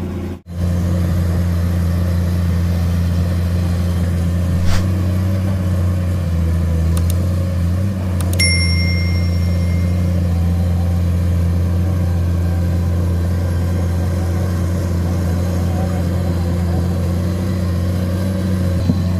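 Komatsu excavator's diesel engine running steadily under load, a deep drone. There is a sharp metallic clank about 5 s in and another about 8 s in that rings briefly.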